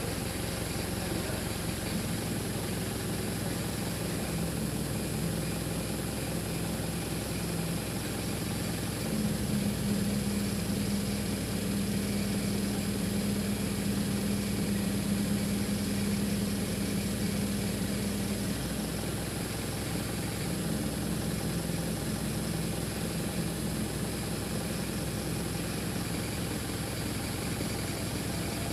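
Engine of a truck-mounted boom lift running steadily, stepping up louder and higher for about nine seconds in the middle, then settling back.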